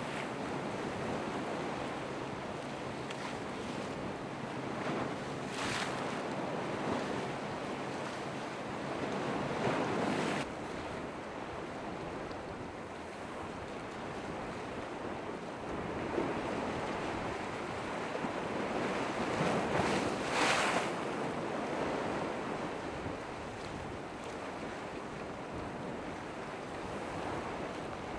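Ocean surf and breaking waves, with wind buffeting the microphone. There are louder surges of crashing water about six, ten and twenty seconds in.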